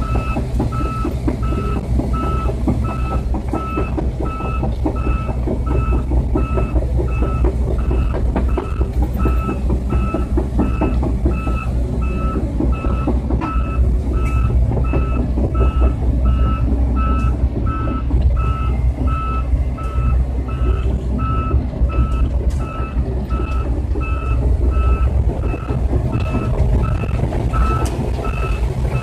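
Volvo EC210 crawler excavator's travel alarm beeping steadily and evenly over its diesel engine's low, steady running. The alarm signals that the machine is tracking along.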